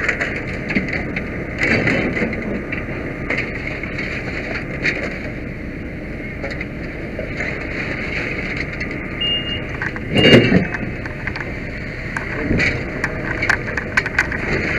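Fire engine running steadily alongside, with scattered small knocks of equipment being handled. About ten seconds in there is one loud clunk, near two short high beeps.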